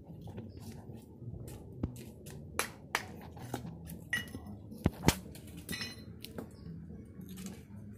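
Hammer striking the metal stakes and wooden form boards at the edge of a cured concrete sidewalk to loosen them for removal. It makes a string of irregular, sharp metallic clinks and knocks, the loudest about five seconds in.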